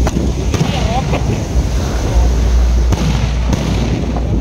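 Fireworks display: aerial shells bursting overhead in several sharp bangs a second or so apart, over a steady low rumble.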